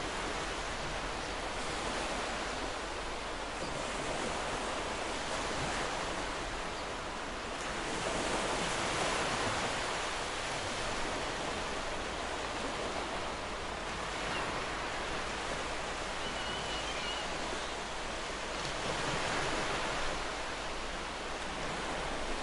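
Small waves lapping and washing onto a pebbly sand shore of a calm sea: a steady wash that swells slightly now and then.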